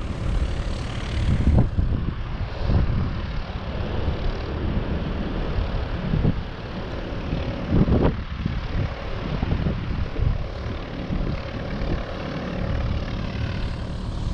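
Boeing 737-800 jet engines running as the airliner slows on the runway just after touchdown: an uneven low rumble with a faint steady whine.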